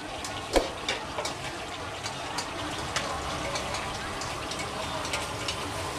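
Stir-frying in a large aluminium wok: a steady sizzling hiss, with a metal spatula and ladle clinking and scraping against the wok, the sharpest clank about half a second in.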